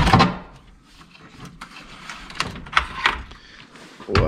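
Clunks and light clicks of a hybrid battery pack's plastic case, its wiring and fittings as the pack is lifted and handled. There is a louder knock right at the start and more thuds near the end.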